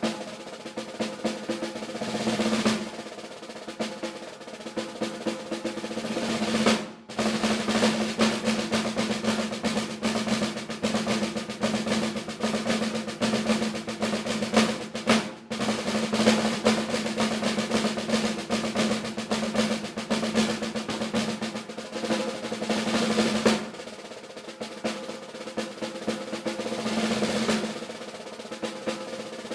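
Solo snare drum playing a rudimental solo of fast rolls and accented strokes. Soft passages build near the start and come back near the end, around a loud middle section. The playing stops briefly twice, about seven and fifteen seconds in.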